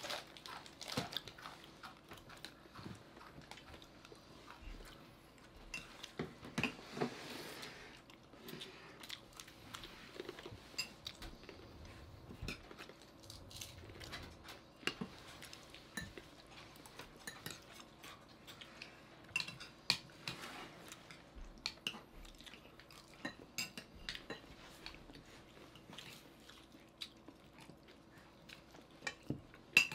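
A group eating a meal: spoons and forks clinking against plates and bowls, with chewing, in scattered short clicks.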